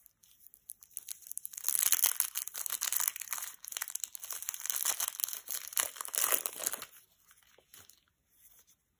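Clear plastic film wrapper being torn and peeled off a Mini Babybel's red wax coating with gloved fingers: a run of crinkling and tearing that starts about a second and a half in and dies away about seven seconds in.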